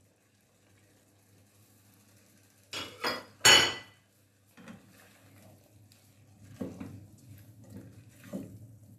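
A glass bowl and a spatula knocking against an aluminium cooking pot as chopped onions are tipped in: three sharp clinks about three seconds in, the last the loudest. Then a spatula stirs onions and ridge gourd pieces in the pot, with soft scrapes against the metal.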